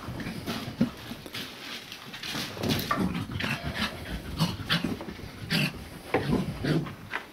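English setter puppies play-fighting, with a quick irregular run of short puppy vocal sounds and panting throughout.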